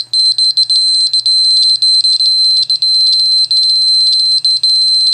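Polimaster PM1703MO-1B radiation detector sounding its alarm: a loud, high-pitched tone pulsing rapidly and without a break. It signals an elevated gamma dose rate from the cobalt-60 and cesium-137 sources packed in the box.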